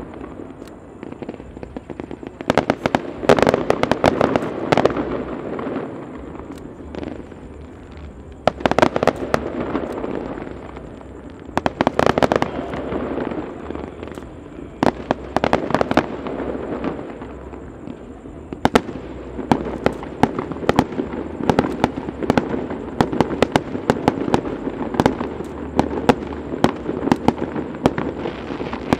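Aerial fireworks bursting in volleys of sharp bangs and crackles, with dense clusters about three, nine, twelve and fifteen seconds in and a steady run of pops through the second half.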